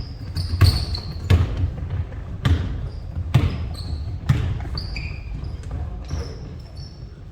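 Basketballs bouncing on a gym floor, a thud about every second, with short high squeaks of sneakers on the court.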